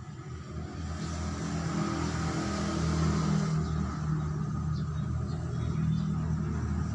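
Truck engine running, growing louder over the first two seconds and then holding steady.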